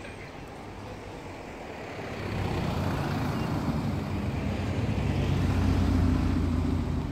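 Cars driving slowly past close by, their engine noise building from about two seconds in and loudest near the end.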